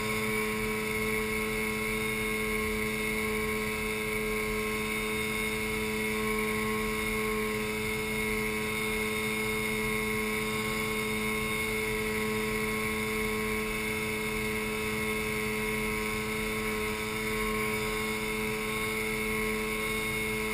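Outboard motor of an inflatable boat running at a steady cruising speed: an even drone that holds one pitch.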